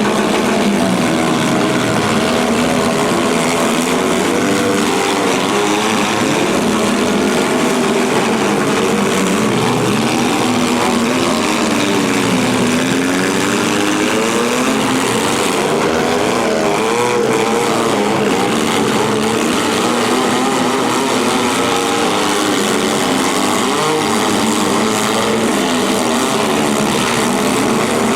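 Several compact car engines running hard at once in a demolition derby, their pitches rising and falling as they rev and ease off, over a steady wash of engine noise.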